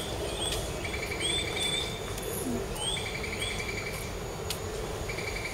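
Bird chirps: short rising chirps and a quick trilled note that repeats about every two seconds, over a steady low rumble of platform background noise.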